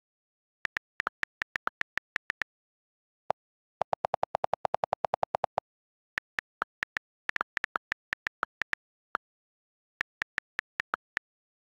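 iPad on-screen keyboard key clicks, each a short sharp tick. There is an irregular run of typing clicks, then about four seconds in a quick, even burst of deeper delete-key clicks as the key is held and a word is erased, then more typing clicks.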